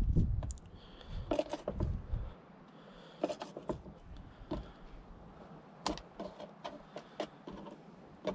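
Kitchen knife clicking and tapping on a plastic cutting board as squid tubes are sliced into rings, in irregular single clicks. A low rumble is heard in the first two seconds.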